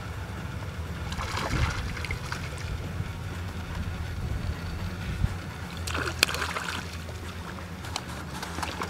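Water splashing and sloshing beside a kayak, in two short spells about a second in and about six seconds in, over a steady low rumble.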